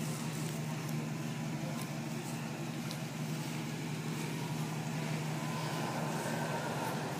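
Chevrolet Impala SS's 5.7-litre LT1 V8 idling steadily.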